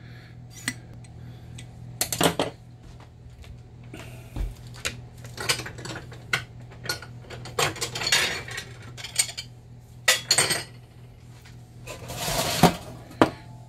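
Kitchen handling sounds: a stainless steel meat injector and other metal utensils clicking and clinking as they are set down, and an enamel roasting pan with a wire rack knocking and scraping on a glass-top stove, the loudest scrape near the end.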